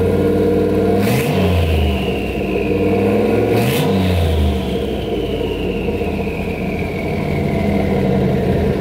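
LS-swapped Ford Ranger's LQ4 6.0-litre V8 running at idle and revved twice, about a second in and about three and a half seconds in, each rev followed by a slowly falling high whine.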